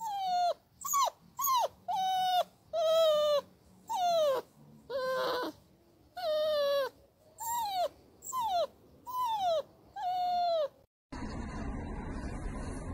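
A puppy's whimpering cries played as a test sound: about a dozen short, high whines, each falling in pitch. About eleven seconds in they stop and a steady hiss takes over.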